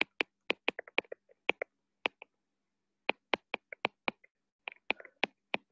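A stylus tapping and clicking on a tablet screen during handwriting: sharp, irregular clicks in quick runs, with a short pause about halfway through.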